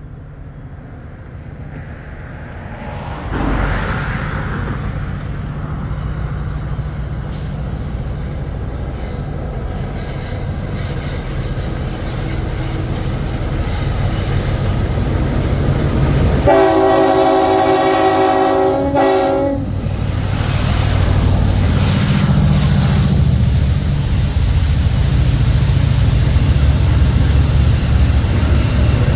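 Norfolk Southern freight train's diesel locomotives approaching with a rumble that comes in sharply about three seconds in and keeps building. Past the middle, one long chord blast of the locomotive horn lasts about three seconds as a horn salute. The heavy rumble of the train rolling through continues afterwards.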